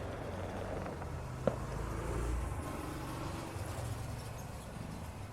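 Fireworks recording in a lull between volleys: a steady low rumble with one sharp pop about a second and a half in.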